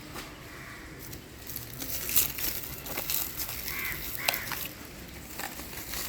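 Scattered sharp clicks and knocks of hand work on a hybrid battery pack being fitted.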